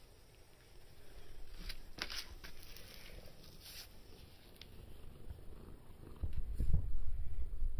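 Calico cat purring while a hand strokes its head: a low, pulsing rumble that comes in loudly about six seconds in. Before that there are only faint scuffs and rustles.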